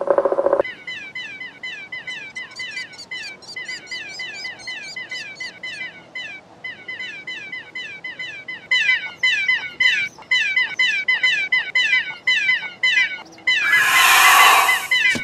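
Cartoon baby pterosaur chicks cheeping: a long, fast run of short, high, falling chirps, several a second. A loud, harsh cry cuts in near the end.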